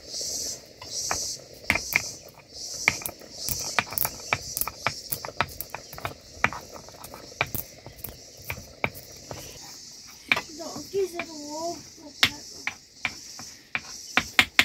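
A small hand stone knocking and crushing seeds on a flat stone grinding slab (Nepali silauto and lohoro): a fast, irregular run of sharp stone-on-stone taps. Crickets chirp steadily high behind it.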